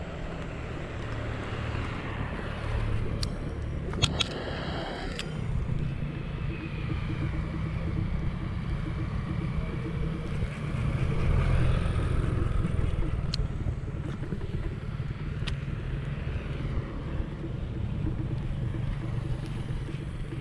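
Road traffic: a steady low engine rumble of passing vehicles that swells about halfway through. A few sharp clicks come around four seconds in.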